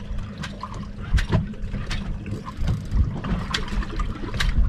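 Wind rumbling on the microphone aboard a fishing boat, with water slapping the hull in irregular sharp knocks over a steady low hum.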